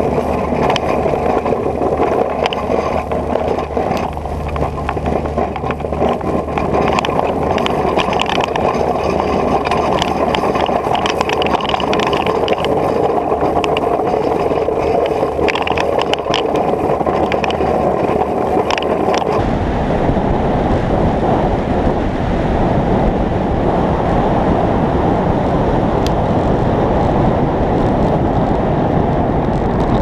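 A vehicle engine running steadily, with crackling and clicking over it. About two-thirds of the way in, the sound changes abruptly to a heavy, rumbling wash of wind buffeting the microphone.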